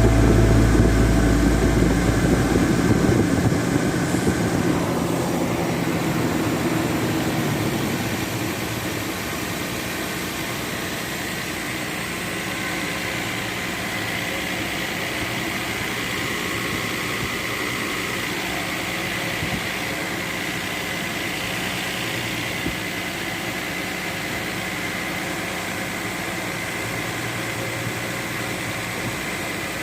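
Toyota 1FZ-FE 4.5-litre inline-six engine idling steadily, with a constant whine above the hum. Background music fades out over the first few seconds.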